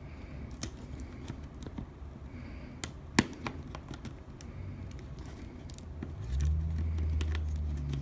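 Small clicks and taps of tools and fingers on laptop plastic as a stuck, partly glued DC power jack is worked at to pull it free, with one sharp click about three seconds in. A low steady hum comes in about six seconds in.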